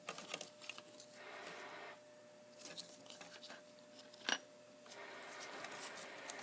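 Small clicks and soft rubbing of plastic parts as a Jeep XJ clock spring is handled, with one sharp click about four seconds in.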